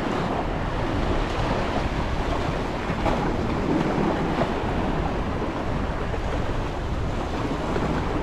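Sea surf washing against the rocks of a jetty, a steady rushing noise, with wind buffeting the microphone.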